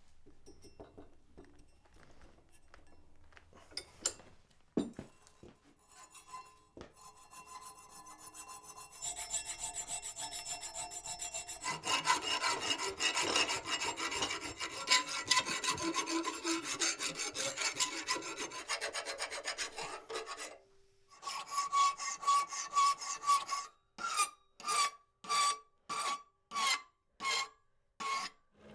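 A hand tool rasped back and forth over wrought iron. A few light taps come first, then a long run of quick scraping strokes. It ends with seven slower, separate strokes, each with a ringing squeal.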